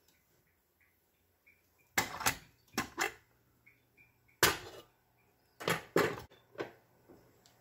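Stainless-steel stove-top pressure cooker lid being twisted free and lifted off once the pressure is released: a series of about eight sharp metal clicks and clanks, the loudest about halfway through.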